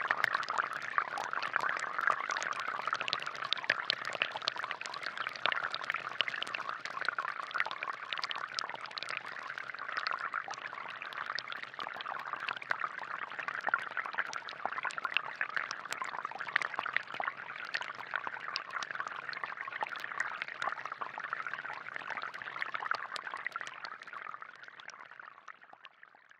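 Water splashing and trickling from a balloon-powered DIY fountain, a steady crackling splash that fades out near the end.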